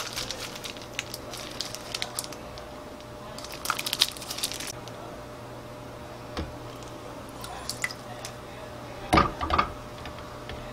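Ginger pieces and green onion root dropped by hand into a glass pot of water and pork ribs, giving small plops, splashes and clicks in scattered clusters. Near the end cooking wine is poured from a bottle into a metal measuring spoon over the pot, with one louder, brief sound about nine seconds in.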